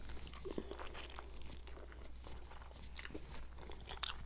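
Close-up mouth sounds of chewing a bite of overcooked fried egg: irregular soft clicks and smacks, with one sharper click near the end.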